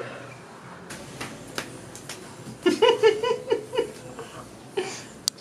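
A person laughing: a burst of about six short, evenly spaced laughs about three seconds in, after a few soft clicks.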